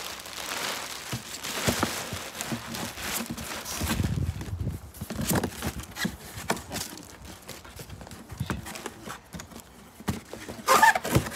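Clear plastic sheeting rustling and crinkling as it is gathered up and handled, with scattered taps and knocks. A short, louder pitched sound comes near the end.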